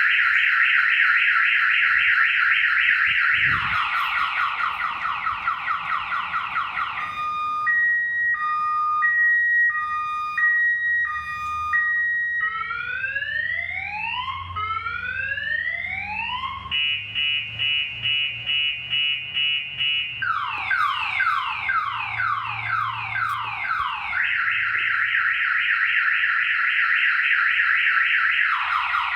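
Compustar aftermarket car alarm siren going off, set off from its remote, cycling through its tones: a fast warble, quick falling sweeps, an alternating two-note beep, slow rising whoops, a rapid pulsing tone, falling sweeps, then back to the warble.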